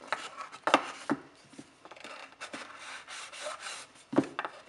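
Fondant being rubbed smooth over a foam form, in a run of soft strokes, with a few sharp taps on the work surface, the loudest near the start and near the end.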